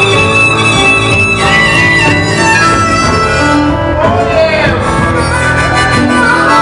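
Live band playing an instrumental passage with no singing, melody instruments over a steady accompaniment.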